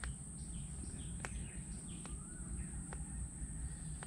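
Riverbank ambience: faint, short bird chirps over a low rumble, with a sharp faint click about once a second.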